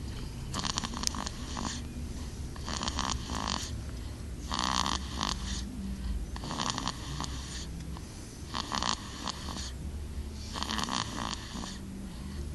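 A young boy snoring in his sleep, a soft fluttering rasp almost like a kitten purring, repeating about every two seconds with each breath.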